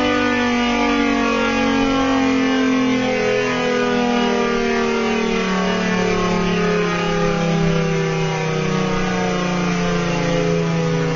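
Tornado siren sounding at its level-5 chopper setting, its tone sliding slowly down in pitch as it winds down.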